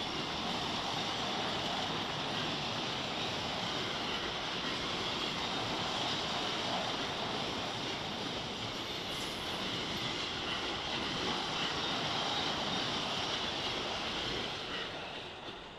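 Freight train of double-deck car-carrier wagons rolling past: a steady rushing noise of steel wheels on the rails, fading near the end as the last wagons go by.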